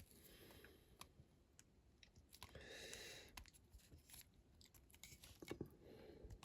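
Near silence with a few faint clicks and taps of small diecast model parts being handled, as a grille is fitted back on.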